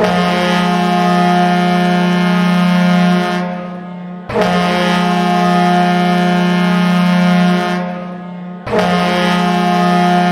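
Florida Panthers arena goal horn: three long, steady blasts of one low, reedy horn tone, each tailing off before the next.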